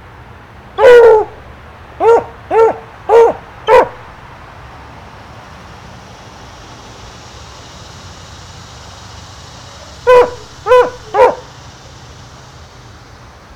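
A dog barking: a single bark about a second in, then four quick barks, a pause of about six seconds, and three more barks near the end.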